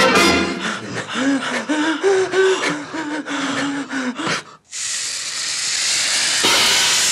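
A music soundtrack with a low wavering tune breaks off about four and a half seconds in. A steady, loud hiss of a burning dynamite fuse follows for about three seconds.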